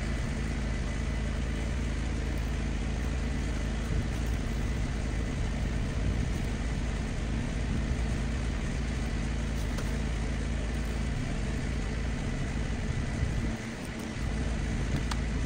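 Gas pressure washer engine running steadily, a continuous low drone. The low rumble dips briefly near the end.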